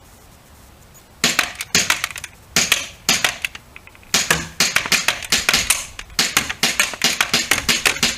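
WE G19 gas blowback airsoft pistol firing semi-automatic shots, each a sharp crack with the slide cycling. The shots start about a second in, four spaced ones at first, then a quicker string from about four seconds in.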